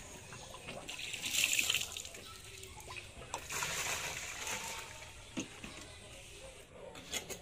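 Water splashing and sloshing in a rusty drum holding live hito catfish, in two louder bursts about a second and three and a half seconds in, with a few small knocks near the end.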